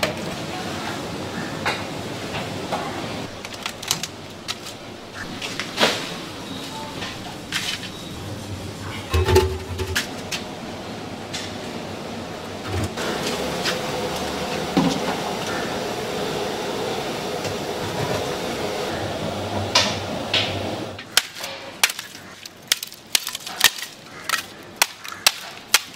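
Food-preparation clatter with scattered clicks and knocks over a steady background, then, about five seconds before the end, a run of sharp knocks about two a second.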